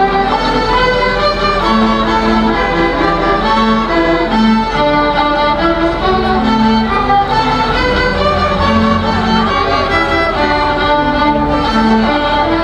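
Children's string ensemble of violins and cellos playing a piece together: a bowed melody over recurring held low notes.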